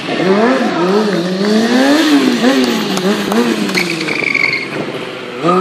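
Stunt superbike's engine revving up and down in quick, repeated throttle blips, with a brief high squeal about four seconds in.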